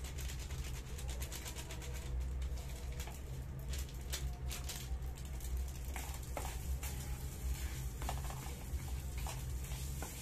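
Red plastic spatula stirring and scraping rice around a small electric cooking pot while fried rice is mixed: irregular light scrapes and taps over a steady low hum.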